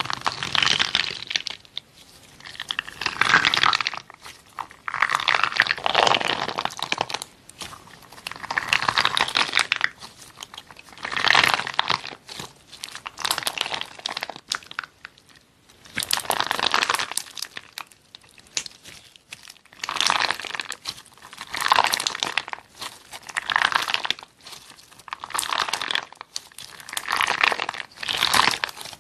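Slime being squeezed and pressed by hand over and over, giving bursts of dense crackling about every two seconds.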